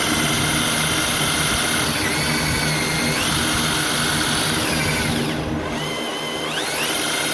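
Electric drill running, turning a crank pulley past a crankshaft sensor. Its whine drops in pitch about two seconds in, climbs back a second later, drops again near the middle and speeds back up near the end.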